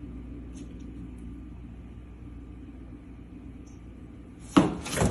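A steady low rumble, then a loud sudden noise about four and a half seconds in and another near the end.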